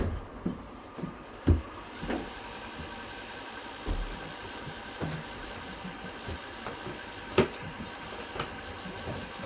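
VHS player running with a faint steady mechanical hum, broken by a few sharp clicks and knocks, the loudest about a second and a half in and again near seven and a half seconds.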